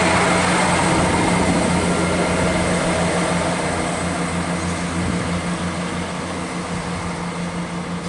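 Diesel multiple-unit train running away down the line, its underfloor engines holding a steady low drone that fades gradually as it recedes.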